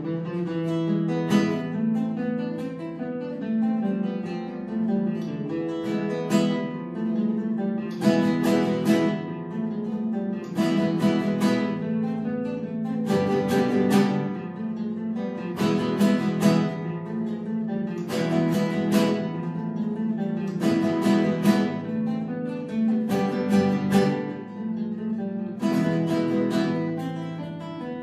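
Two nylon-string classical guitars playing together as a duet, picked notes broken by sharp strummed chords every couple of seconds.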